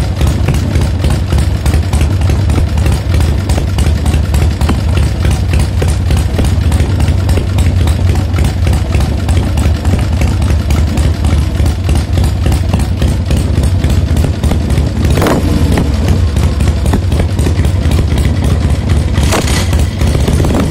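Harley-Davidson Panhead V-twin engine in a custom bobber idling steadily with an even, unchanging beat. A brief sound falls sharply in pitch about three quarters of the way through.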